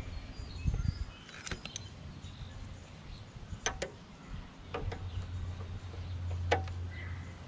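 A handful of sharp metal clicks and taps from pliers and a small drive gear being handled and fitted onto a lawn mower's wheel drive assembly, with a low hum underneath from about five seconds in.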